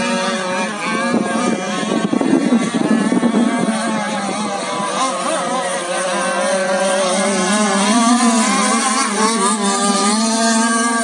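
Radio-controlled model racing catamarans running at speed, their small motors giving a continuous high buzzing whine whose pitch wavers up and down as the boats race. A rougher rushing noise joins in about a second in and fades by about four seconds in.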